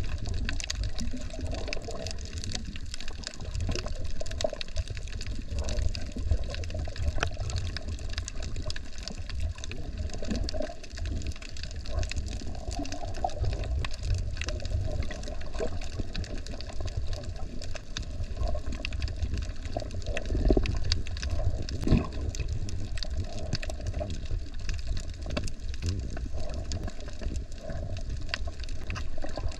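Underwater sound picked up by a submerged camera: a steady low, muffled rumble of moving water with faint scattered clicks throughout.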